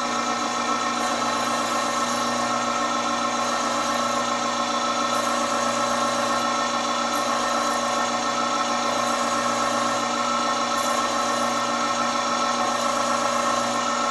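Chef's Choice Diamond Hone electric knife sharpener's motor running with a steady hum while a dull kitchen knife is drawn through one of its sharpening slots.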